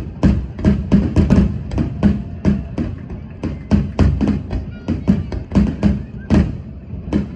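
Fireworks bursting in a rapid, irregular barrage, about three to four sharp bangs and deep thuds a second.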